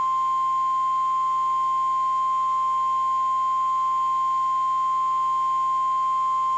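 NOAA Weather Radio 1050 Hz warning alarm tone: one steady, loud pure tone, the signal that a warning message (here a tornado warning) is about to be read.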